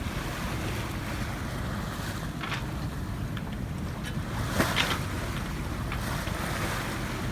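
Wind buffeting the microphone over water rushing past a yacht's hull, with a brief louder splash a little over halfway through.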